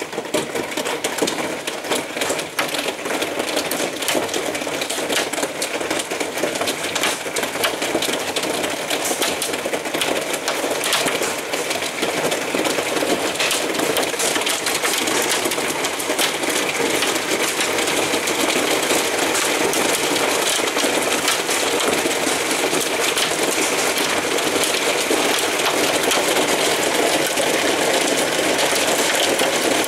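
Hailstones pelting down on a corrugated roof and garden: a dense, continuous clatter of countless small ice impacts, growing a little louder and more even over the second half.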